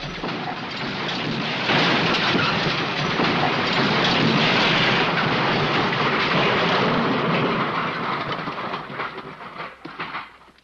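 The long tail of a crash sound effect: a dense clattering rattle of debris and breaking material that thins into scattered clatters after about eight seconds and stops near the end.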